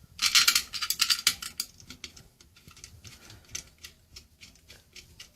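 Shower valve trim plate being handled and set in place over the valve, with rapid clicking and rattling for the first couple of seconds, then a few scattered clicks.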